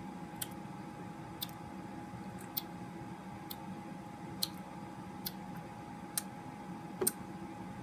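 Watery slime being worked in the hands, giving small sharp clicks about once a second, not quite evenly spaced, that sound like water droplets.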